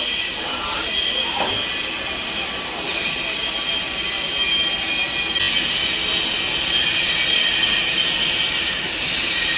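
CNC lathe machining an aluminium ring: a steady loud hiss with high, thin whining tones over it, one of which comes in about two seconds in and drops out a little past the middle.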